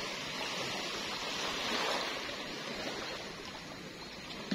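Small waves lapping at the shoreline, a steady wash of water, with a single sharp click near the end.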